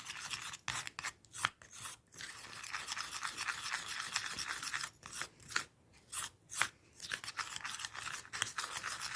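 A spoon stirring and scraping a thick paste of flour, talcum powder and water around a bowl: irregular rasping strokes with short breaks between them.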